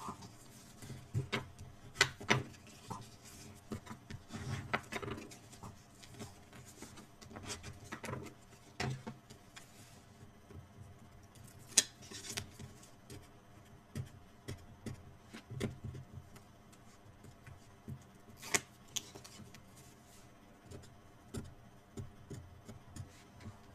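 Cardstock pieces being handled and positioned on a craft table: scattered light taps and clicks with a few short paper rustles.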